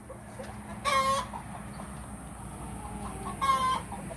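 Young laying hens (pullets) calling: two short calls, one about a second in and another near the end.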